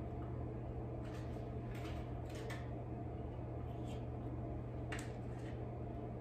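Faint soft clicks and rustles of hands wrapping prosciutto slices around cantaloupe chunks on a plate, a few scattered through the first five seconds, over a steady low hum.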